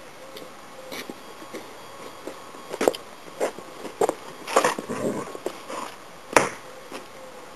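Dogs at play barking: a run of short, sharp barks, about seven of them, between about three and six and a half seconds in, with a brief low rumble among them near the middle.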